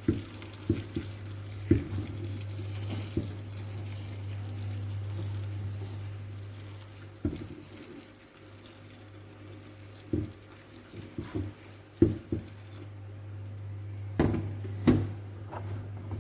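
Kitchen work with hot water: water splashing and things being handled in a pot, with scattered knocks of utensils and dishes over a steady low hum.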